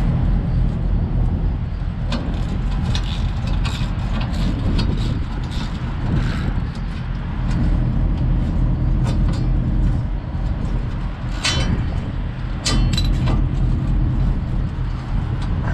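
Diesel truck engine idling steadily, with scattered sharp metallic clinks and clicks of hand tools and bolts, two louder ones near the end.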